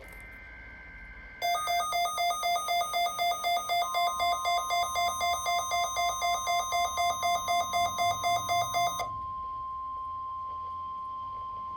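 NOAA Weather Radio weekly test signals. A burst of the EAS/SAME digital header, a two-tone data warble, ends about a second in. Then a rapid beeping alarm at about three beeps a second runs for some seven seconds, and from about four seconds in the steady 1050 Hz weather radio warning alarm tone sounds, holding on alone after the beeping stops.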